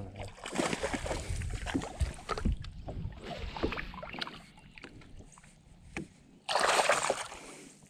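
Knocks, clicks and rustling of gear being handled aboard a fishing boat, then a loud rushing burst lasting under a second near the end.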